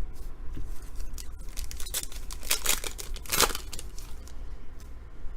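A foil trading-card pack being torn open and its wrapper crinkled, with the loudest rips about two to three and a half seconds in.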